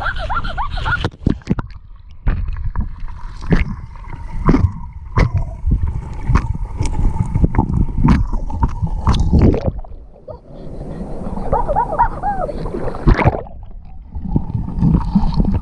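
Muffled splashing and sloshing of river water heard through a camera held under the surface, with many sharp knocks and thumps from water and hands hitting the camera and a heavy low rumble. Later a short gurgling warble comes from air bubbles.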